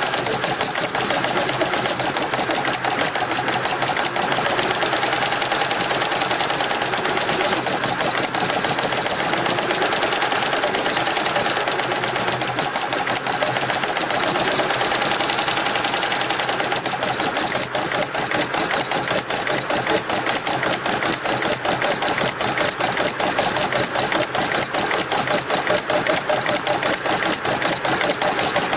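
Richpeace multi-head computerised embroidery machine running, its needles stitching in a rapid, steady clatter.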